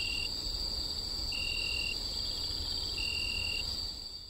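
Night-time insect chorus of crickets: a steady high trill with a shorter chirp repeating about every second and a half, fading out near the end.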